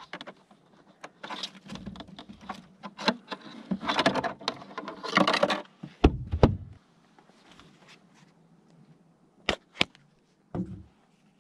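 Items clattering and being rummaged in a plastic cooler, then the cooler lid shutting with a heavy thud about six seconds in. Near the end come two sharp clicks and a knock as a plastic food container's snap lid is opened.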